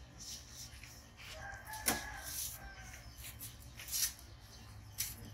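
A rooster crowing once in the background, a drawn-out call about a second in, while a cleaver knocks three times as it cuts green bananas off the bunch against a wooden table.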